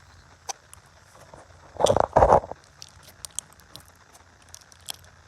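Slime being worked by hand, with scattered sticky crackles and pops. About two seconds in come two quick, loud squelches of air forced out of the slime, the so-called slime farts.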